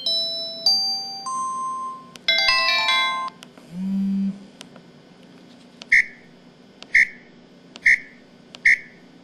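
Samsung SPH-X9100 mobile phone playing its built-in sound effects in turn: a short melody of stepping electronic beeps, then a brief chord jingle, then a low buzz, then four short chirps about a second apart.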